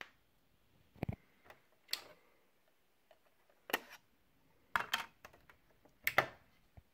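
Faint, scattered clicks and knocks, six or seven spread over several seconds, from a Sylvania portable CD boombox being handled with its disc lid open.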